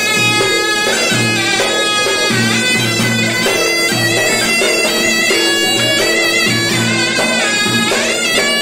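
Zurna (Turkish double-reed shawm) playing a loud, gliding folk melody over a davul bass drum beaten with sticks in a steady beat about twice a second.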